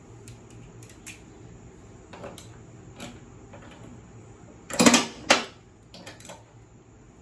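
Scattered light metal clicks and knocks from hand work on a riding mower's deck while a deck belt is routed, with two louder clanks about half a second apart about five seconds in.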